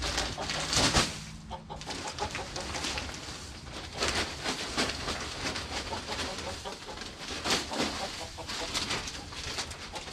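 Chickens clucking, with intermittent rustling and scraping as fresh wood shavings are spread on the coop floor.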